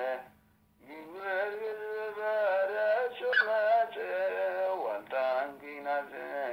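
Male singing of a church hymn (mezmur), breaking off briefly about half a second in, then resuming, with a faint steady hum underneath.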